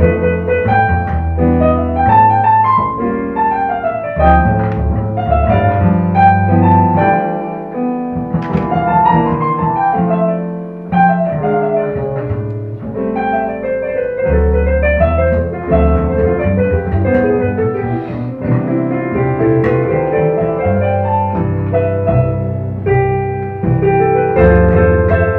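Duet of a Kurzweil digital piano and a double bass playing continuously, the piano carrying a steady flow of notes over the bass line. The low bass notes thin out for a few seconds near the middle, then return.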